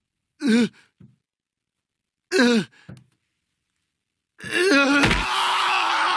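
A cartoon character's pained voice: two short groans falling in pitch, then a longer, louder strained groan that breaks into a rasping breath, with a thump as he collapses to the floor about five seconds in.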